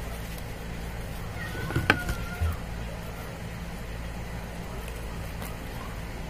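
Scissors snipping through folded tissue paper, faint against a steady low hum, with one sharp click about two seconds in.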